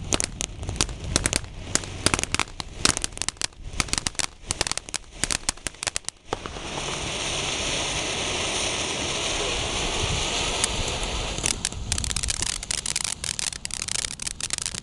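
Ground fireworks fountain: a fast, dense crackle of popping sparks for about six seconds, then a steady loud hiss as it sprays red fire, then crackling again for the last few seconds.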